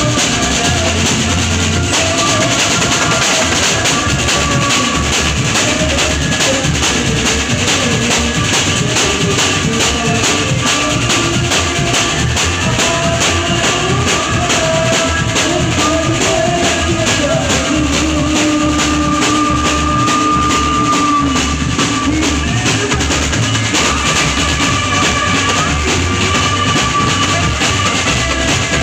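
Band music: a drum kit keeps a steady beat with bass drum and snare under held melody notes.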